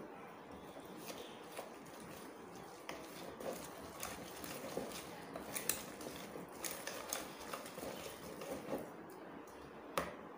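Wire whisk stirring a thick batter of gram flour, flour, egg and water in a plastic bowl: quiet, with irregular light clicks and scraping of the wires against the bowl, and a sharper click near the end.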